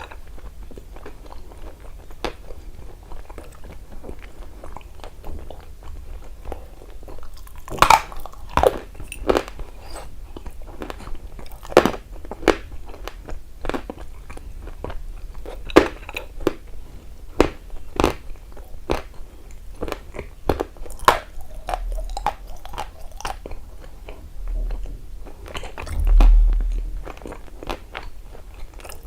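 Close-miked biting and chewing of a dry, crunchy lump of chalky material, with sharp crunches at uneven intervals. The crunches come thickest about eight seconds in, and a low thud sounds near the end.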